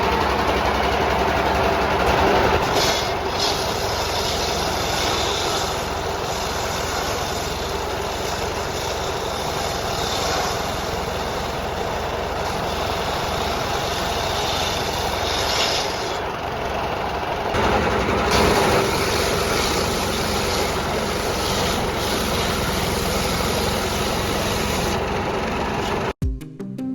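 Stationary diesel engine driving a circular saw bench for timber, running steadily with a dense mechanical din. It cuts off abruptly near the end and music starts.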